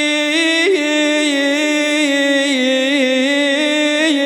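A male reciter holding one long, unbroken chanted note of an Iraqi Shia lament poem, the pitch wavering in small ornamental turns.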